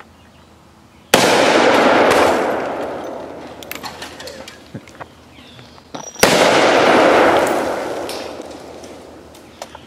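Two shots from a 4-inch-barrelled Smith & Wesson .500 S&W Magnum revolver with a ported barrel, about five seconds apart. Each is a sudden blast followed by a long echo that dies away over two to three seconds.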